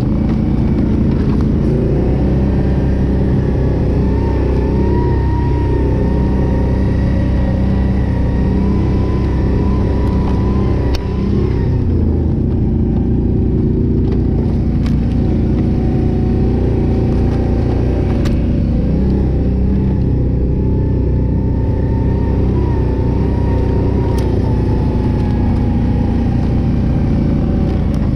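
Can-Am Renegade 800 ATV's V-twin engine running steadily under throttle, with a higher whine wavering above it. The engine note dips briefly about eleven seconds in, then carries on.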